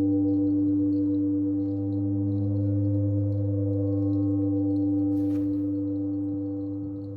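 Singing bowl ringing on in a steady, layered hum of several held tones that swell and ease slowly, with faint high chirps above and a short soft rustle about five seconds in.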